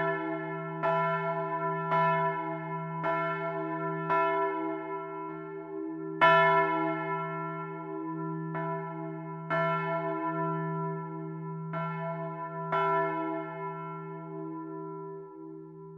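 Large bronze church bell (Otto foundry, 1951) heard from inside the belfry as it rings down. Its clapper strikes about once a second at first, then more sparsely as the swing dies away; the last stroke comes about 13 seconds in. The bell's low hum and ringing tones then fade.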